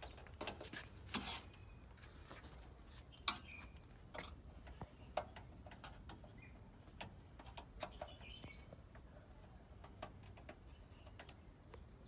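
Faint, scattered clicks and taps of a screwdriver and fingers working the metal bracket screw of a graphics card in a PC case, with a few short, faint high chirps between them.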